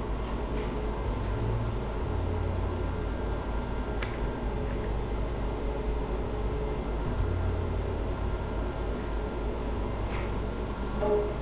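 Steady hum and blowing of a cold-air skin cooling machine used during laser tattoo treatment, with a deeper hum that comes in twice for a couple of seconds and a single click about four seconds in.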